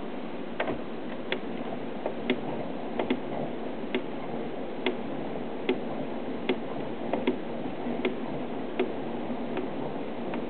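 Circa-1922 Columbia Grafonola D2 spring-wound phonograph sounding while its side crank is worked: sharp, regular clicks a little over once a second over a steady hiss.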